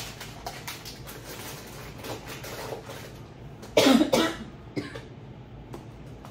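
A woman coughs, a short burst of coughing about four seconds in, over light clicks and rustles of kitchen items being handled.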